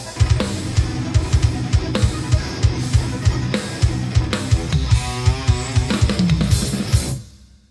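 Acoustic drum kit played hard along with an instrumental metal track with guitar: rapid bass-drum strokes, snare hits and cymbal crashes. The music fades out quickly in the last half second.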